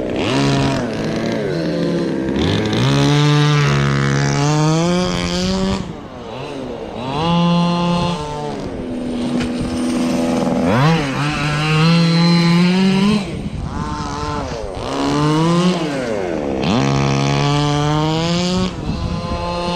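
Small two-stroke engines of 1/5-scale gas RC trucks running, revving up and easing off again and again as they are driven.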